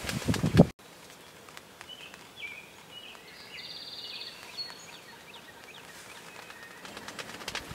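A loud low pulsing sound cuts off abruptly under a second in, leaving quiet open-field ambience. Small songbirds give short high chirps and one brief high trill through the middle.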